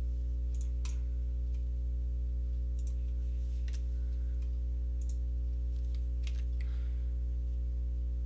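A handful of separate computer mouse and keyboard clicks over a steady low electrical hum.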